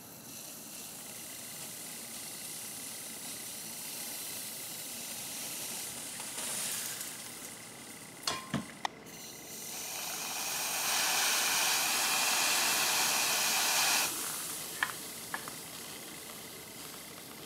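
Can of compressed air spraying onto an aluminium sheet: a steady hiss that slowly builds, gets louder about ten seconds in, and cuts off sharply about four seconds later, with a few light clicks.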